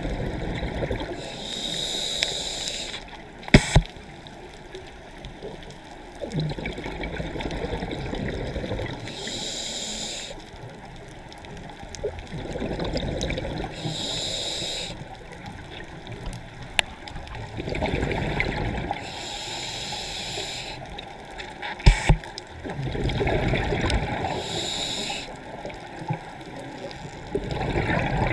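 Scuba regulator breathing underwater: a short hiss on each inhale alternating with a longer bubbling rush of exhaled air, about one breath every five seconds. Two sharp clicks, about four seconds in and again about twenty-two seconds in.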